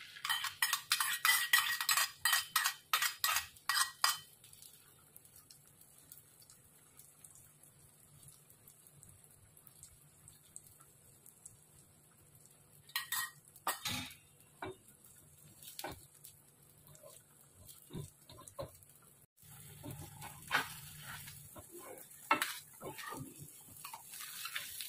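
A spoon scrapes and clinks against a steel bowl as egg batter is poured onto a hot oiled cast-iron tawa: a quick run of metal clinks for about four seconds. After that come scattered metal taps, then frying sizzle with metal turners scraping the griddle near the end.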